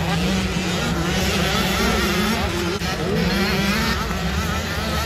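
Several small motocross bikes racing on the dirt track, their engines revving up and down with overlapping, wavering pitches as the riders go through the gears.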